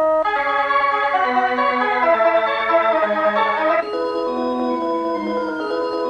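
Instrumental music: a melody of held notes over chords with an organ-like sound. About four seconds in, it thins to fewer, longer notes.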